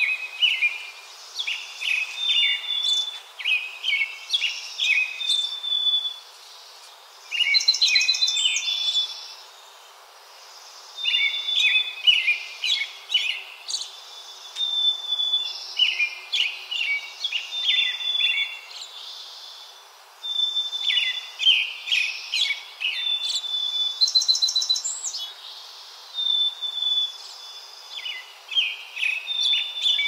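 A songbird singing a run of varied song phrases, each a few seconds long with short pauses between, made of clear whistled notes and quick trills.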